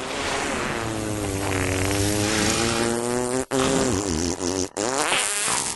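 A long raspy buzzing drone with a wavering pitch, cut off twice for an instant near the middle.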